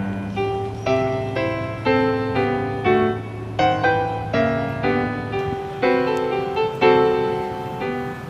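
Background piano music: a slow melody of struck notes over a held low bass.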